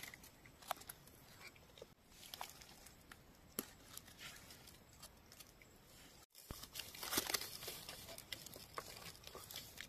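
Faint rustling and scattered crackles of dry leaf litter and twigs being handled while wild mushrooms are picked, with a louder stretch of rustling about seven seconds in.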